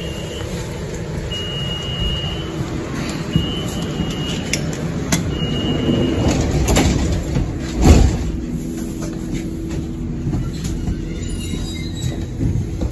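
A Düsseldorf SkyTrain car, a driverless suspended monorail, running along its track, heard from inside as a steady hum and rumble. Short high beeps sound four times in the first six seconds, and a thump about eight seconds in is the loudest moment.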